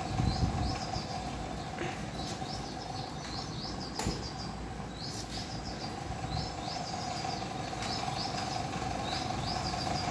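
Small birds chirping over and over in quick runs of three or four high notes, about once a second, over a steady hum.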